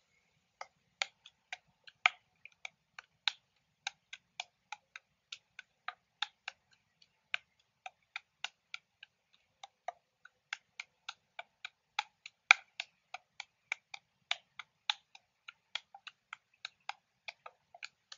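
Juggling clubs being caught in the hands, a sharp click at each catch in an uneven rhythm of about three a second.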